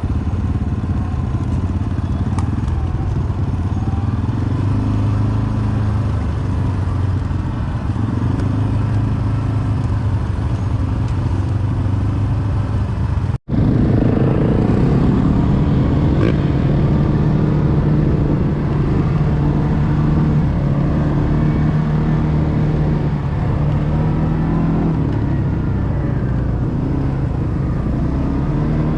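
ATV engine running on the move, its pitch rising and falling with the throttle. The sound cuts out for an instant about halfway through, then carries on.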